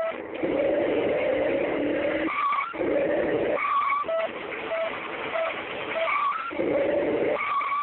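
Hummer H2 revving in three loud bursts while its wheels spin in dirt, with short high squeals between the revs.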